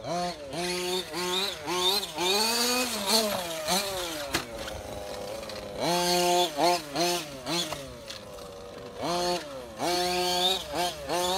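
Losi 5ive-T large-scale RC truck's two-stroke gasoline engine revving up and down over and over as it is driven, its pitch climbing with each burst of throttle and dropping back off it.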